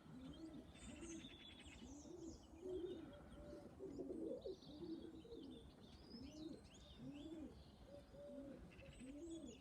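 Faint, repeated cooing of domestic pigeons at the loft, one coo after another, with small birds chirping high above them.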